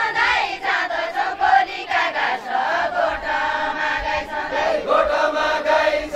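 A group of women singing a Deuda folk song together in a chant-like melody of long held notes.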